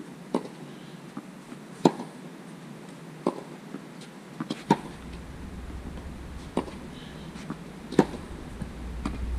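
Tennis racket strings striking a ball in a steady baseline rally, one hit about every second and a half. The near player's shots are loud and the far player's fainter, with soft ball bounces between them. A low rumble comes in about halfway and grows toward the end.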